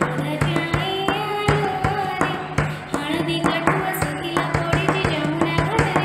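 Odia devotional bhajan to Krishna, used as a mobile ringtone: a voice sings a bending melody over a steady low held note and a regular percussion beat.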